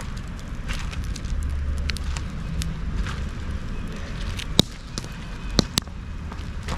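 Wood bonfire of dried branches and logs crackling, with scattered small clicks and three louder sharp pops in the second half, over a low steady rumble.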